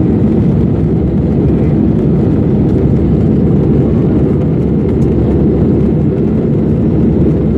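Steady cabin noise of a jet airliner in flight, engines and airflow heard from inside the cabin as a low, even rumble.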